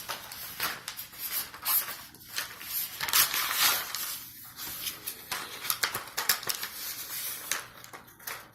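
Toy packaging being handled and opened: irregular crinkling and rustling with sharper crackles here and there.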